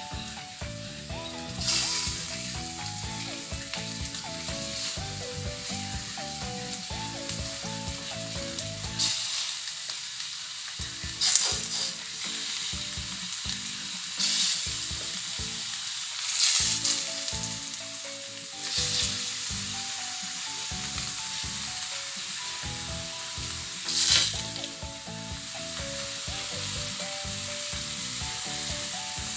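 Pieces of tongkol fish sizzling in a hot wok on a gas stove. The steady frying hiss flares up briefly about six times as more pieces are laid into the pan, over faint background music.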